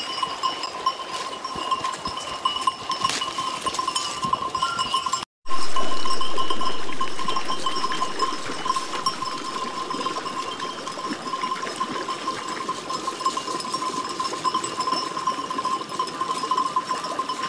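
Flock of sheep with neck bells clanking as they move, over a steady high-pitched tone. The sound drops out briefly about five seconds in and comes back louder, settling down over the next few seconds.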